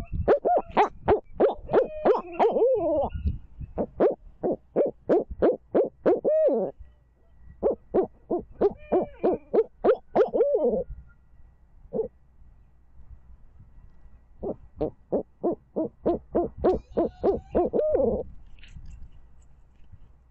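Barred owls calling in bouts of fast, rhythmic hoots, each bout ending in a drawn-out, down-slurred "hoo-aww". There are four bouts with short pauses between them, and a single hoot in one of the pauses.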